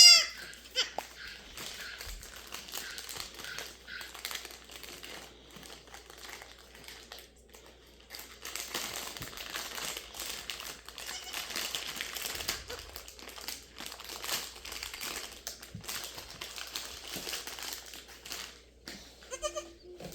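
Newborn Nigerian Dwarf goat kid bleating once, loudly, at the start, followed by soft rustling and crinkling handling noises.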